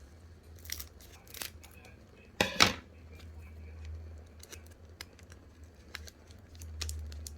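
Trading card booster pack being handled and opened: light clicks and rustles, with one loud, sharp cutting or ripping sound about two and a half seconds in. A steady low hum runs underneath.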